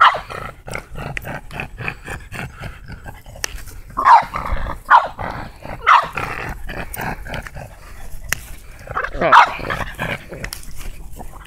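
Small dog barking at a crab: a bark right at the start, three sharp barks about a second apart around four to six seconds in, and another about nine seconds in.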